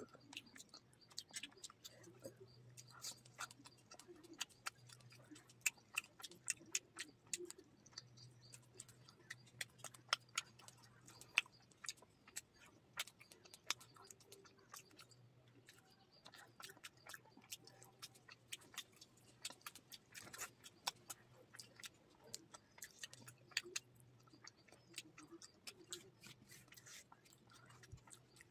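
Chewing a mouthful of fish curry and rice, with many short, soft mouth clicks and smacks throughout, along with fingers picking at fish and gathering rice on a banana leaf.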